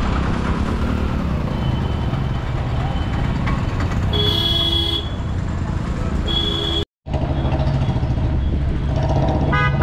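Busy road traffic: vehicle engines running steadily with car horns honking, about four seconds in, again around six seconds and near the end. The sound drops out briefly near seven seconds.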